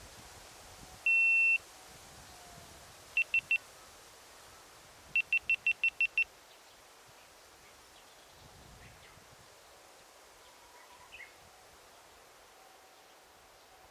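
Electronic beeping at one steady high pitch: a single long beep about a second in, three quick beeps around three seconds, then a run of seven quick beeps a couple of seconds later, over faint forest ambience. A few faint bird chirps come near the end.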